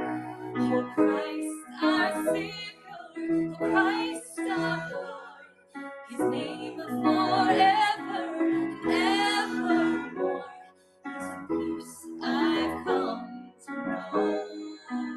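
Worship song: a woman singing with keyboard accompaniment, held chords under a wavering sung melody.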